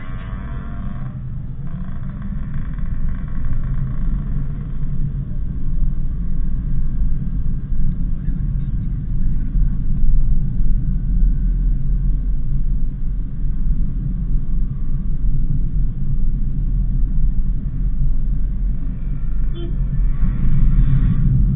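Daihatsu Sigra driving along: a steady low rumble of road noise and engine that grows gradually louder over the first several seconds.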